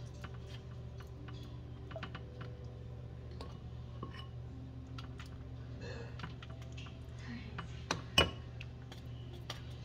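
Metal spoon clicking and scraping in a glass bowl of marinade and tapping against foil as spice paste is spread over a whole red snapper. There is a louder clink about eight seconds in, and a steady low hum underneath.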